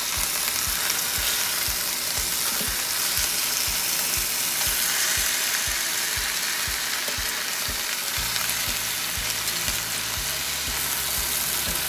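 Skinless chicken thighs frying in hot coconut oil in a pan, a steady sizzle as they brown.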